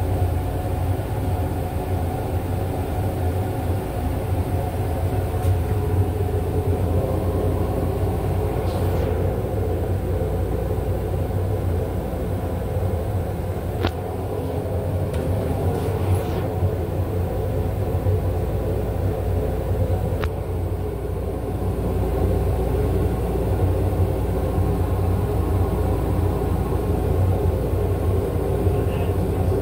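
Steady running rumble of a moving Metro-North M8 electric railcar, heard from inside its small restroom, with a few sharp clicks near the middle.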